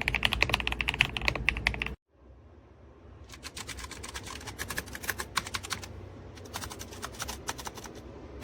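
Gasket-mounted mechanical keyboard with linear switches typed on fast, a dense run of keystroke clacks. About two seconds in it cuts off abruptly, and after a short gap quieter, sparser typing starts up again.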